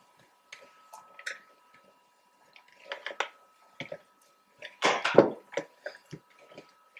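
Kitchen prep handling noises: scattered light clicks, taps and clatters of utensils and dishes, busiest about three and five seconds in, over a faint steady whine.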